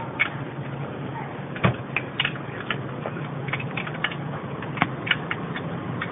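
Irregular metallic clicks and knocks of a socket wrench working the lower 10 mm bolt of a Citroën C3's accessory-belt tensioner, with two louder knocks about two and five seconds in.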